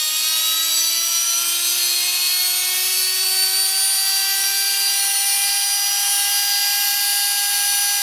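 Brushed motor from an old canister vacuum cleaner, impellers removed, running with no load in a high, steady whine that rises slightly in pitch over the first few seconds and then holds level. It is running normally after a spell underwater, with no bearing noise.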